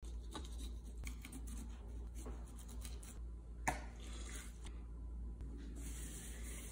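Kitchen knife scraping and cutting through the skin of a whole raw salmon in several short strokes, then a lemon half squeezed with a sharp click and juice running over the fish, then a pinch of salt sprinkled onto it with a fine hiss, over a steady low hum.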